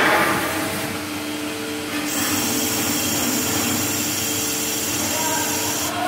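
CNC lathe running under coolant as it machines a small metal handle knob: a noisy rush near the start, then the machine runs steadily. About two seconds in, a steady high whine joins, in keeping with the spindle running up.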